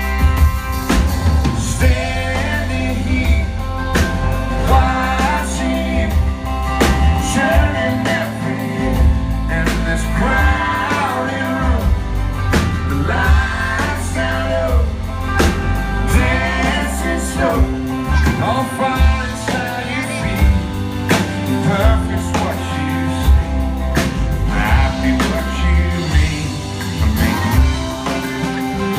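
Live band playing a song with singing, loud and steady: drums keeping time over a bass line, with a sliding melodic lead above.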